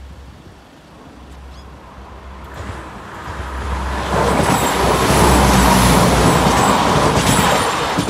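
Class 172 Turbostar diesel multiple unit approaching and running over a level crossing. Its engine and wheel-on-rail noise grow louder from about three seconds in and are loudest in the second half.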